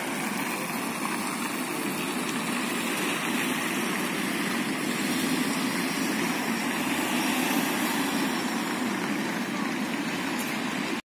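Road traffic: cars driving past on a wide city avenue, a steady mix of engine and tyre noise that swells a little partway through as vehicles pass closer.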